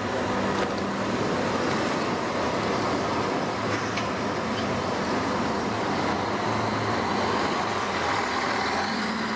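Steady close-range traffic noise with a low engine hum, as a city bus and then another tram pass right alongside an open window of a vintage tramcar. A brief click about four seconds in.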